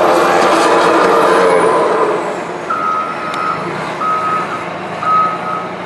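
A snowplow's heavy engine runs loud and works under load for the first two seconds. Then the plow backs up, and its reversing alarm beeps about once a second, three times.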